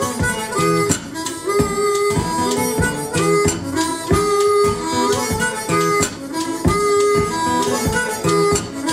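Blues band instrumental break: a harmonica plays a short repeating riff over a steady guitar-and-drum groove.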